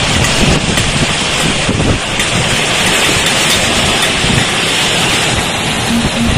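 Storm-force hurricane wind buffeting the microphone: a loud, continuous rush of noise with gusty low rumbles throughout.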